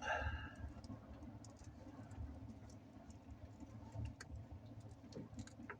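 Faint handling noise from a heavy battery cable being worked by hand, with scattered small clicks and ticks over a low steady hum.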